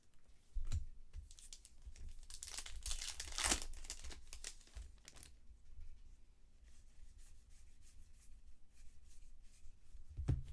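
Trading-card pack wrapper being torn open and crinkled, with the loudest tearing a few seconds in. There is a low thump about half a second in and another near the end.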